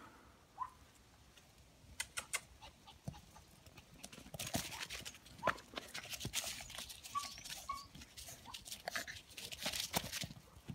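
A Biewer Yorkie puppy scuffles and mouths a round yellow object close by among dry fallen leaves and grass. There are a few clicks about two seconds in, then dense rustling and crackling from about four seconds in until near the end, with a couple of faint short squeaks.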